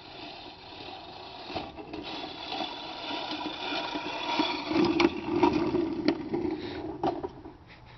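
Push reel lawn mower's spinning blades whirring and clattering through grass as a bicycle pushes it across a lawn, growing louder as it comes closer, with several sharp knocks in the second half before it fades near the end.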